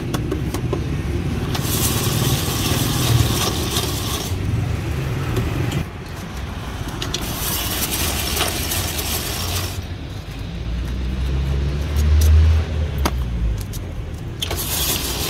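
Hand-cranked cast-iron ice shaver scraping a block of ice into shaved ice, in spells of hissing scrape about two and a half seconds each: starting about one and a half seconds in, again about seven seconds in, and near the end. A low rumble of road traffic runs underneath and swells about twelve seconds in.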